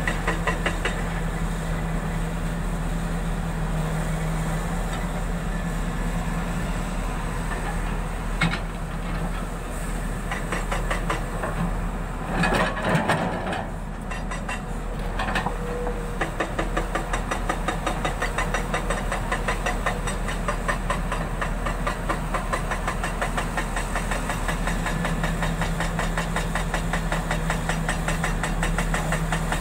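Volvo crawler excavator's diesel engine running steadily as the machine swings and works its hydraulics. There is a sharp clank about eight seconds in, and a burst of scraping and rattling around the middle as the steel bucket digs into rocky soil.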